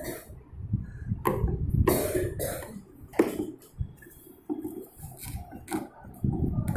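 Irregular knocks, clicks and scrapes of tools and parts being handled while a washing machine's base and gearbox are taken apart.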